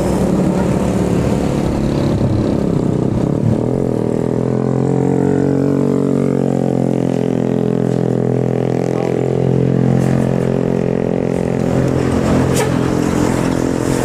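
Heavy diesel coach engine running under load as it passes, a steady low drone that dips and rises slightly in pitch around the middle.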